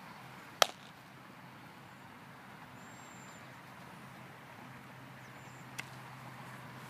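Two sharp smacks of a baseball hitting a leather glove, a loud one about half a second in and a fainter one near the end, over a faint steady outdoor background hum.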